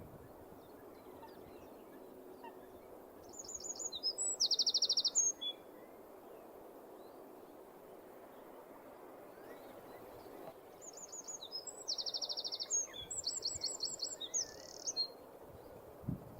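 Eurasian wren singing: two loud bursts of rapid high trills and rattles, the first about three seconds in and a longer one about eleven seconds in.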